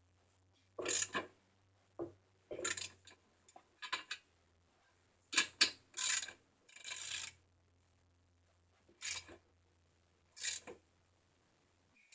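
Irregular short scraping and knocking sounds, about ten in all, from BMX bike parts being handled and worked on, over a faint low hum.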